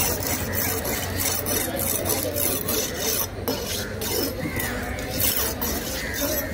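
A knife blade rasped back and forth on a wet sharpening stone, in quick even strokes about three a second.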